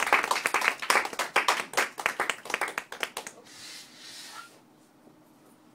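A small audience clapping, separate claps rather than a roar of applause, dying away after about three seconds. A brief soft hiss follows, about a second long.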